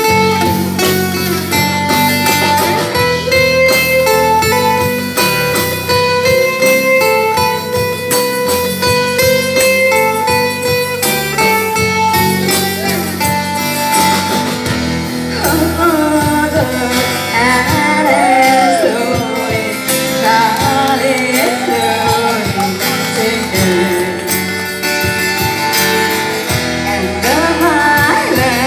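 Acoustic guitar playing with a shaken tambourine, and a woman's singing voice through a microphone coming in about halfway through.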